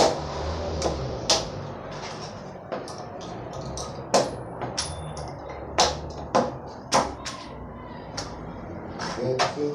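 Irregular sharp knocks and clatter of wooden formwork boards being struck and pulled loose from a concrete slab, about a dozen hits.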